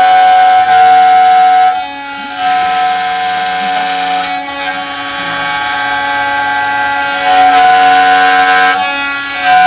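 CNC wood router running and cutting: layered steady whining tones that jump to a new pitch set every one to three seconds as the machine's moves change.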